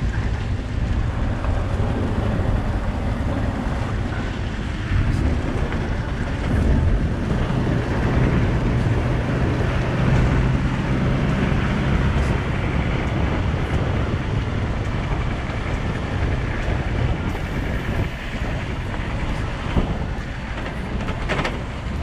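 A vehicle driving over a salt flat: steady engine and tyre noise with wind buffeting the microphone, a little louder for a few seconds in the middle.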